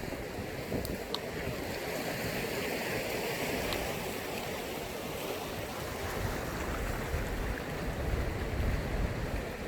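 Sea waves washing on the shore: a continuous wash of surf, swelling a few seconds in, with a heavier low rumble of breaking water near the end.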